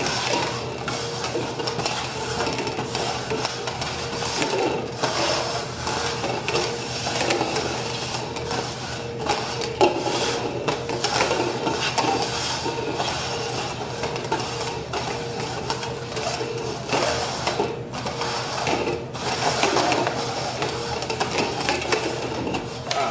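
Red plastic cups being slid and shuffled quickly over a wooden tabletop: a continuous scraping and rubbing with frequent light knocks as the cups are pushed, lifted and set down.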